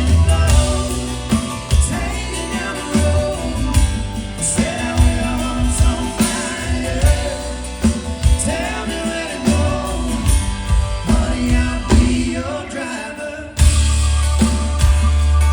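Live band performance of a rock song with sung vocals over guitar. Near the end a heavy bass comes in suddenly and the music gets louder.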